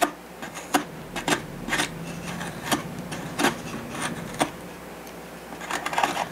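A small hobby knife shaving corners off a wooden chin block: short scraping cuts at uneven intervals, with a quicker run of cuts near the end.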